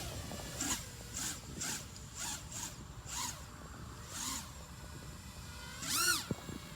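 A small drone's electric motors spinning up and back down in short, uneven bursts, about eight times, with a longer, louder rise and fall near the end. These erratic motor surges are the weird noises that go with the drone's twitching and shaking, a fault the owner cannot explain.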